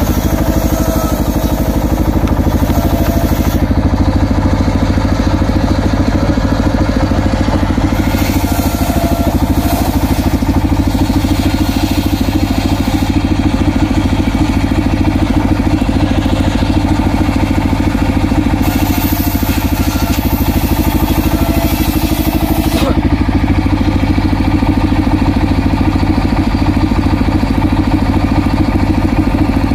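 Engine-driven circular saw bench running steadily, with the engine's rapid firing pulse underneath. Three times, for a few seconds each, a hissing rasp joins in as the large blade rips through an acacia log.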